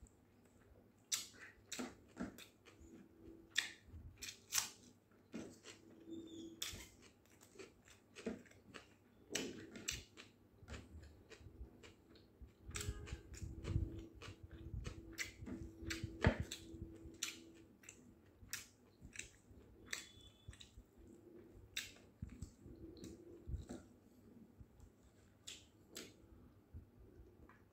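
Close chewing and lip-smacking of a person eating boiled mutton and rice, with short wet mouth clicks coming irregularly throughout.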